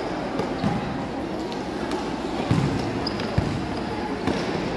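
A soccer ball thudding on a hard court, kicked and bouncing during play, four times, the loudest hits about halfway through. Voices murmur in the background.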